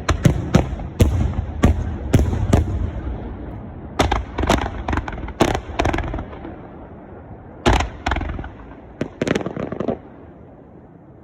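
Fireworks display finale: a rapid series of aerial shell bursts, each bang trailing a low rumble, coming in clusters that thin out and stop about ten seconds in.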